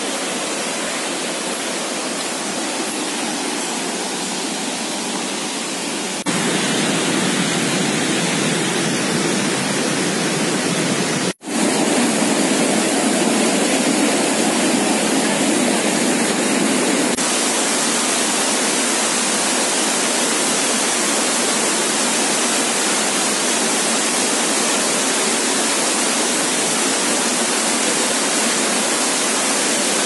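Rushing water from waterfalls and a cascading rocky stream: a steady, loud wash of noise with no distinct pitch. It shifts in level and tone at cuts about six and seventeen seconds in, and drops out for an instant about eleven seconds in.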